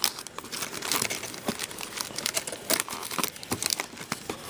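Plastic wrapping crinkling and tearing as a sealed hobby box of trading cards is opened: a dense run of sharp, irregular crackles.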